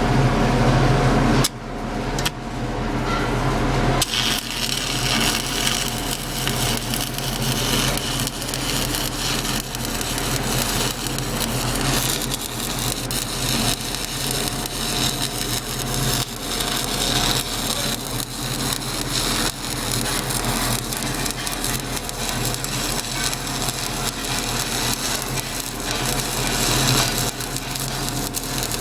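Shielded metal arc (stick) welding with a 7018 electrode: the arc crackles and spits continuously, after a couple of brief breaks in the first few seconds as it is struck, over a steady hum. The bead is run with too long an arc.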